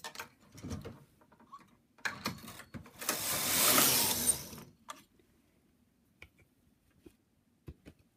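Brother knitting machine carriage pushed across the needle bed to knit a row: a clattering slide that builds to a loud rasp about three seconds in and stops sharply before five seconds, with a few light clicks before and after.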